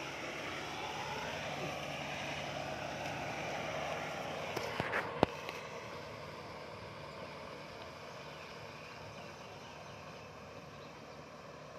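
Tractor engine running steadily while it tills a flooded rice paddy, under an even haze of noise. A few sharp clicks come about five seconds in, one of them the loudest sound here, and the engine sound then grows fainter.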